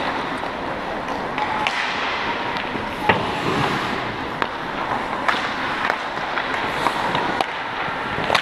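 Ice hockey skates scraping and carving on the ice, a steady hiss, cut by a string of sharp clacks from sticks and the puck striking as play comes in front of the net.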